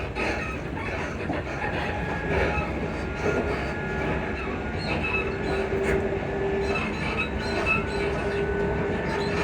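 Class 334 electric multiple unit running, with rumble and clatter and scattered high squeaks. A steady whine joins in about four seconds in and holds.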